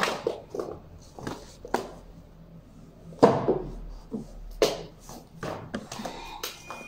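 Books being handled: irregular knocks and short paper rustles as books are picked up, flipped through and set down on the bookstand, the loudest knock about three seconds in.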